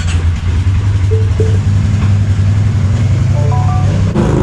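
ATV engine running steadily, a low hum. A few short stepped tones sound over it about a second in and again near the end, and the engine sound changes abruptly just before the end.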